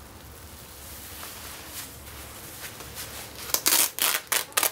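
Hook-and-loop fastener at the wrist being ripped open in several short, loud rasping pulls near the end, after faint rustling of glove and jacket fabric.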